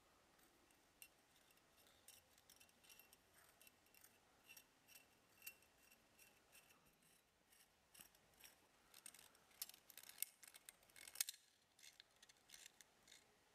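Faint, light metallic clicks and scrapes of a steel coil return spring and throttle cable being handled and pushed into the aluminium slide of a Bing 54 carburetor, thickest and loudest about ten seconds in.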